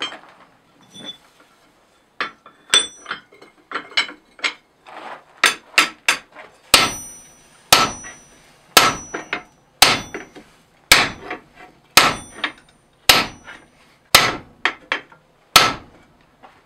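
Hand hammer forging a red-hot steel block held in a clamp on the anvil. Lighter taps and clinks at first, then about nine heavy blows roughly once a second, each with a brief metallic ring.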